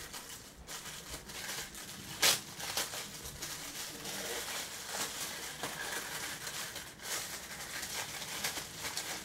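Plastic packaging crinkling and rustling as phone cases are handled and unwrapped, with many small crackles and one sharp loud crackle about two seconds in.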